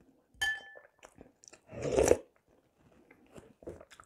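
A metal spoon clinks against a ceramic soup bowl, ringing briefly, about half a second in. Soup is slurped off the spoon around two seconds in, followed by soft chewing.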